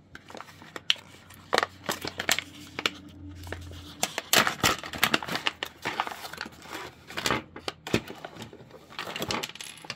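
Crinkling and rustling of a small diamond-painting tool-kit pouch being torn open and emptied, with scattered small clicks and taps as the tools inside knock together and land on the table.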